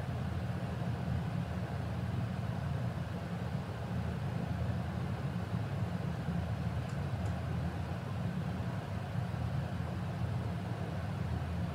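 Steady low hum of a running machine, even in level throughout, with two faint light ticks about seven seconds in.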